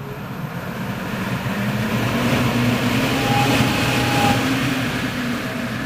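Rosenberg GKHM 280 EC fan (280 mm, single phase) speeding up as its potentiometer is turned up: a steady hum and rush of air that grows louder and rises in pitch over the first few seconds, then eases off slightly near the end.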